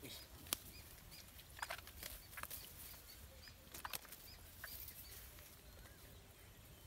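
Quiet outdoor background with faint high bird chirps repeating about twice a second, and a few short scattered clicks and rustles.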